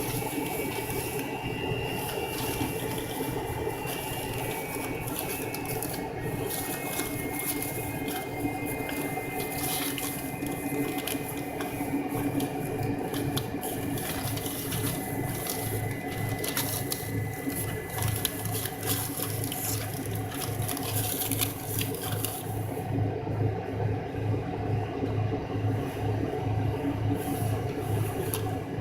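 Cabin noise inside an MD-83 airliner: its tail-mounted Pratt & Whitney JT8D engines running with a steady whine and hum. From about halfway through, a low, regular pulsing joins in.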